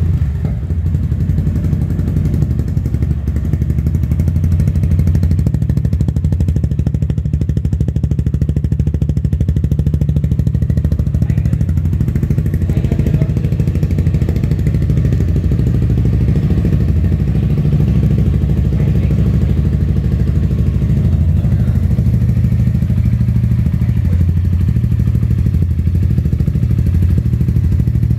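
Suzuki Gixxer SF's single-cylinder engine idling steadily through an aftermarket Akrapovic slip-on silencer and stainless-steel bend pipe.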